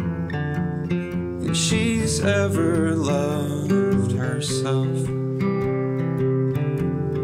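Acoustic guitar strummed and picked in a steady pattern, with a man singing over it, the voice coming in strongest about one and a half seconds in and again near five seconds.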